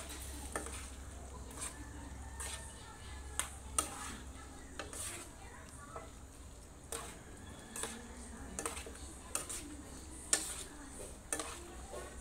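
A spatula stirring carrots and potatoes in tomato sauce in a frying pan: irregular scrapes and knocks against the pan, about one or two a second, over the low sizzle of the simmering stew.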